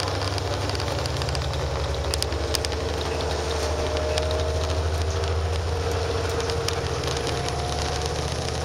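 Inside a moving Grande West Vicinity transit bus: its Cummins ISB6.7 diesel engine and driveline give a steady low rumble. A thin whine rises slowly in pitch as the bus drives on, and scattered rattles and clicks come from the interior fittings.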